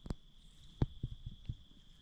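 A few irregular soft thumps and clicks, about five in two seconds, over a steady high-pitched drone.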